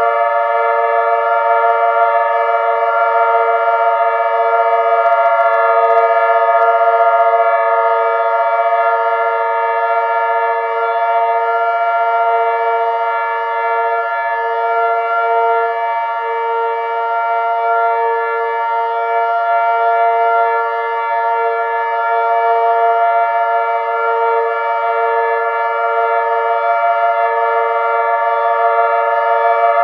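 Several synthesized outdoor warning sirens, a Whelen, a Federal XT22 and two Thunderbolts, sounding together at full pitch as one steady, dissonant chord, the lowest tone wavering as the sirens beat against each other.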